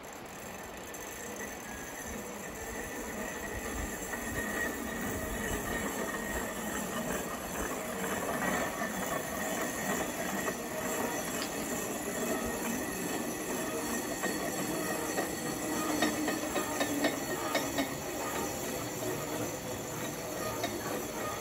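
Grooved pulley wheels of a backcountry cableway cage running along its steel wire cable: a steady, high metallic whine over a dense rattle, growing louder over the first several seconds, with a run of clicks in the latter part.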